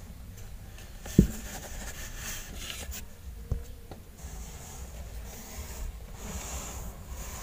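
A mother cat nudging and sniffing her newborn kittens on cloth bedding in a cardboard box: soft rustling and rubbing of the fabric with breathy sniffing. There is a sharp thump about a second in and a smaller one midway.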